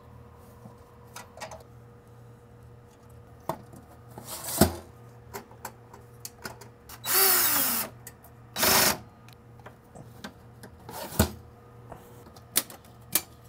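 Small power screwdriver whirring in two short bursts, about seven and nine seconds in, backing screws out of the metal server chassis. Around it, clicks and knocks of metal parts being handled, with one sharp clank about four and a half seconds in.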